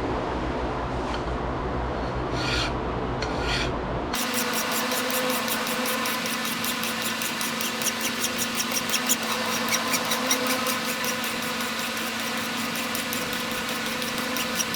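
A hand file rasping along the spine of a wootz steel tanto blade to true it up, in repeated scraping strokes over a steady machine hum. The strokes come much faster and more evenly after a cut about four seconds in.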